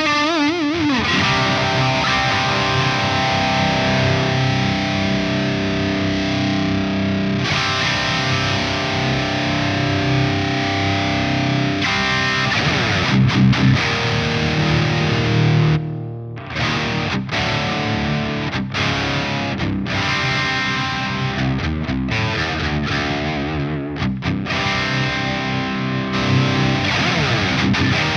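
High-gain distorted electric guitar played through a simulated EVH 5150 III amp: long held chords and notes, some with vibrato, with a brief break about halfway through.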